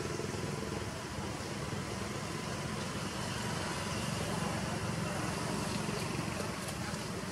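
An engine running steadily under a hum of outdoor background noise.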